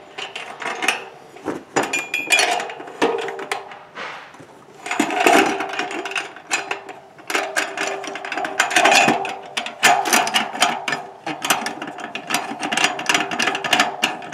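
Metal clanks, knocks and clinks of a steel satellite-dish mounting bracket and pole clamp being fitted onto a steel pole. In the second half this turns into rapid clicking as the clamp's bolts and nuts are worked.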